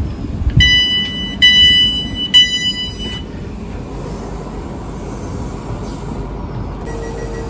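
Door-closing warning beeps on a South Western Railway train standing at the platform: three high electronic beeps in quick succession, over the steady noise of the stationary train. A steady low tone starts near the end.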